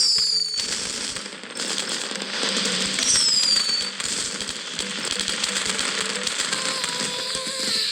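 Fireworks crackling and popping in a dense, continuous patter, with high whistles falling in pitch at the start and again about three seconds in.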